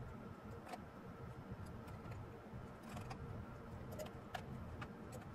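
Faint, irregular small clicks and ticks of metal as the CPU cooler's mounting screws are turned and tightened down onto the motherboard bracket.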